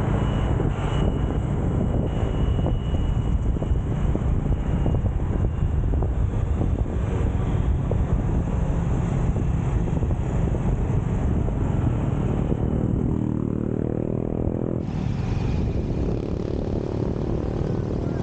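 Motorcycle engine running while riding, with wind rumbling on the microphone; near the end the engine note rises steadily as the bike speeds up.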